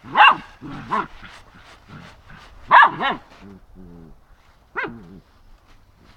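Young Samoyed barking in short, sharp yaps at a broom it is playing with, about five barks, with low growling in between.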